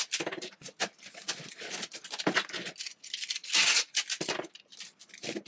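Clear packing tape pulled off a handheld tape dispenser and pressed onto a cardboard box: a run of short rasps and crackles, with a longer pull of tape about three and a half seconds in.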